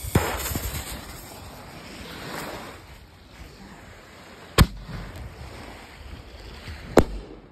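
Consumer canister firework shell: a hissing fuse after lighting, then the lift charge fires with a sharp bang about four and a half seconds in, and the shell breaks overhead with a second bang about two and a half seconds later.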